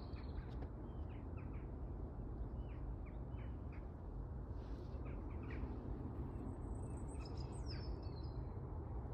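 Birds chirping in short, quick calls, with a cluster of higher chirps near the end, over a steady low rumble.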